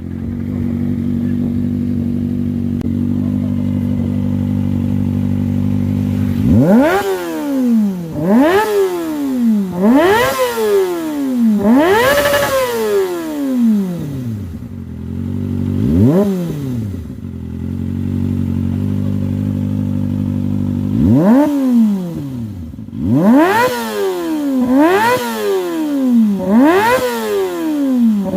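Kawasaki ZX-25R's 250 cc inline-four with an SC Project slip-on exhaust, idling steadily and then revved in two sets of quick, repeated blips. Each blip's pitch shoots up and falls back, with a spell of idle between the two sets.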